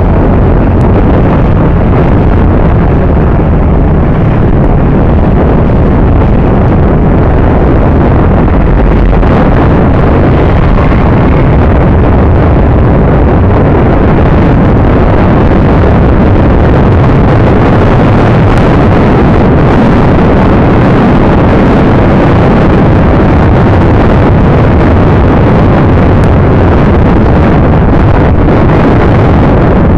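Loud, steady rush of wind buffeting the microphone on a moving motorcycle, mixed with the engine and road noise of riding through scooter traffic.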